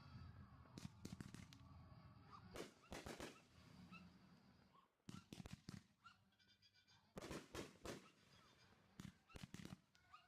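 Class C consumer fireworks bursting: about five clusters of sharp pops and crackles, roughly every two seconds.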